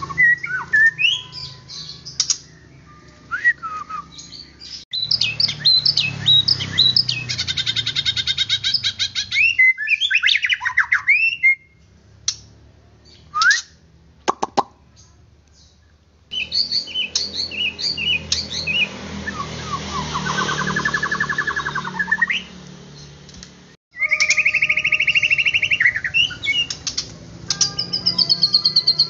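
White-rumped shama (murai batu) singing a loud, varied song of whistles, fast trills and rapid repeated notes, with the song falling nearly silent for a few seconds in the middle before starting again. A steady low hum sits under the song.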